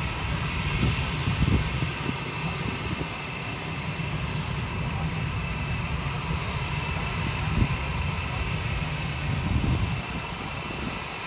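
Blue Angels F/A-18 Super Hornet jet engines running on the ramp, a steady rush with a faint whine. Wind gusts buffet the microphone with an uneven low rumble throughout.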